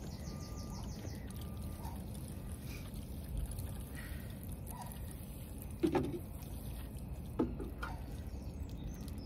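Water sprinkling from a plastic watering can's rose onto the soil around young plants, a soft steady trickle, with two short knocks in the second half.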